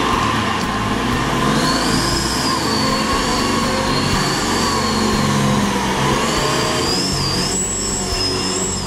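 A modified off-road 4x4's engine running under load as the vehicle winches itself through deep mud, with the high whine of the front winch wavering in pitch as the load changes.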